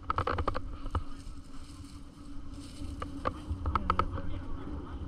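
Dirt bike engine running steadily with a buzzing hum, with a few short clicks or knocks scattered through, most at the start and between three and four seconds in.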